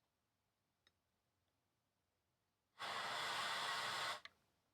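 Ford 6000 CD factory car radio falling silent, then giving about a second and a half of steady FM static hiss that cuts off suddenly: the sound of the radio being tuned off one station onto another.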